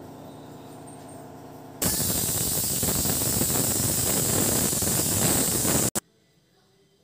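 Shiv Ganga aluminium pressure cooker letting off steam through its whistle weight: a loud hissing blast starts about two seconds in, after a steady low hum, and cuts off abruptly about four seconds later. The whistle is the sign that full pressure has built up inside while the dal cooks.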